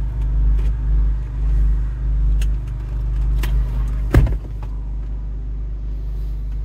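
2020 Ford Explorer ST's 3.0-litre twin-turbo V6 idling, a steady low hum heard from inside the cabin. A few light clicks, and one sharp knock about four seconds in.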